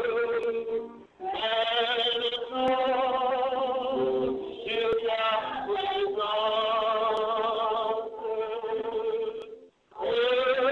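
A man singing a slow religious song, holding long notes with vibrato. The singing breaks off briefly about a second in and again near the end.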